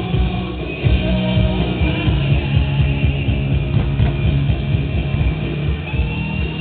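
Loud music with a strong, steady bass line and held notes.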